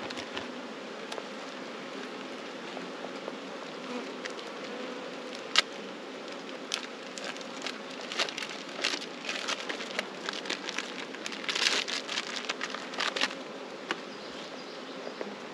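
Honey bees buzzing around the hive in a steady, even hum, with scattered sharp clicks and crackles that are thickest from about 8 to 13 seconds in.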